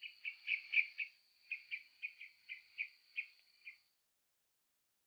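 A small bird chirping: about a dozen short, quick chirps in two runs, over a thin steady high tone. It stops about four seconds in.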